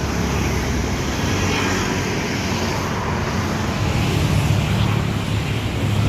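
A bus engine running as the bus pulls out past, over a steady wash of road-traffic noise; the engine rumble grows heavier about two-thirds of the way through. No telolet horn is heard.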